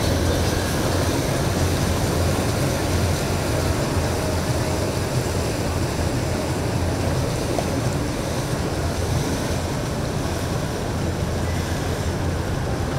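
Boat engines running with a steady low rumble, mixed with the wash of water.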